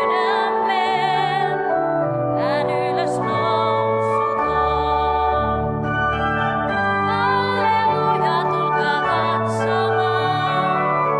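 Finnish Easter hymn sung in phrases with vibrato over sustained church organ accompaniment.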